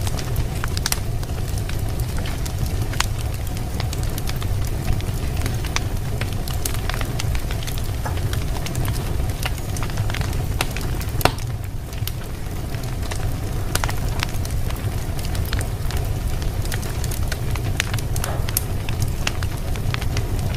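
Wood fire in a fireplace crackling, with irregular sharp pops and snaps over a steady low rumble; one louder pop about eleven seconds in.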